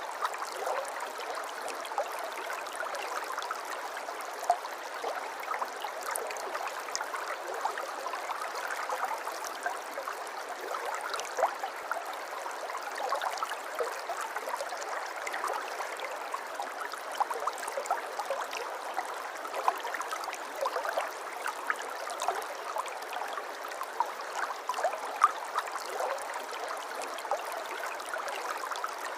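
A softly flowing river: a steady rush of water with many small gurgles and splashes all the way through.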